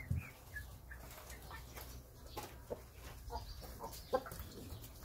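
A flock of chickens clucking in a coop: short, scattered calls from several birds.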